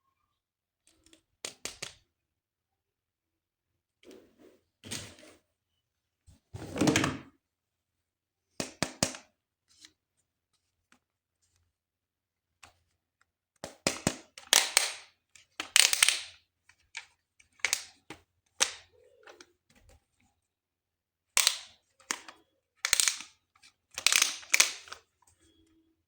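Hard plastic toy parts being handled, giving irregular clusters of sharp clicks and clacks with short silences between, busier in the second half.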